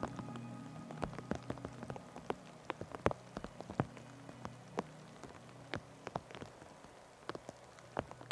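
Rain falling, with individual drops ticking sharply and irregularly close to the microphone over a soft wash of rain, slowly growing quieter.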